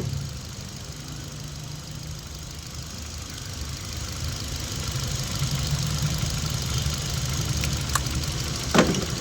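Hyundai i20 four-cylinder petrol engine idling rough and misfiring with the fourth cylinder's injector connector unplugged. The misfire shows that cylinder was firing. There is a short click right at the start and another just before the end.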